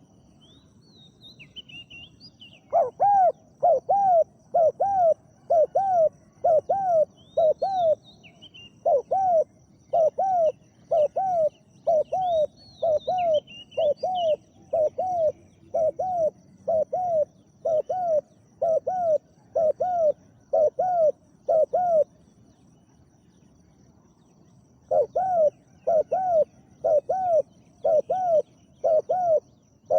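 Spotted dove cooing: a long run of short, arched coos at about two a second, breaking off for a few seconds and starting again near the end. Small birds chirp faintly higher up in the first half.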